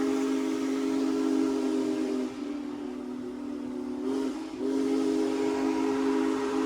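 Union Pacific Big Boy 4014's steam whistle blowing a long, steady chord. It eases off for about two seconds around the middle, then sounds full again.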